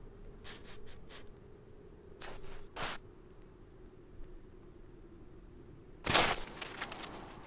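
Cartoon sound effects of a cat moving about in snow: a few faint short rustles, two louder noisy bursts a little after two seconds in, then a loud scraping burst about six seconds in that fades over about a second.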